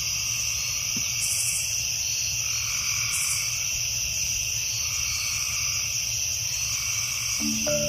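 Nature ambience of a frog and insect chorus: steady high-pitched insect trilling, with a lower call that swells and fades every second or two, over a low rumble. A few held music notes sound at the start and again near the end.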